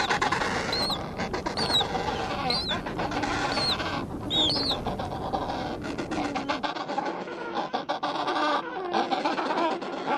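Animal calls: short high chirps repeat about once a second through the first half, over lower pitched calls and scattered clicks.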